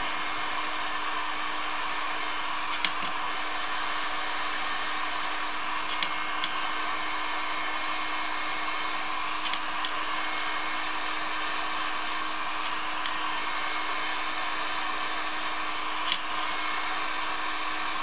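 Electric heat gun running steadily, blowing hot air onto a ball bearing to expand it so it will slide onto the crankshaft. A few light clicks come through over the steady blowing.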